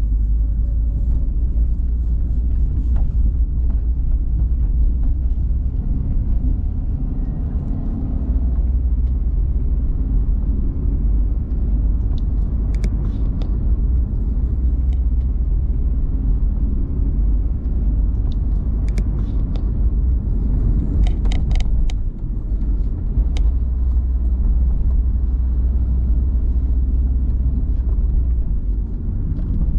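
Car driving along a road, heard from the camera mounted behind the windscreen: a steady low engine and road rumble, with a few faint clicks and a short high chirp about two-thirds of the way through.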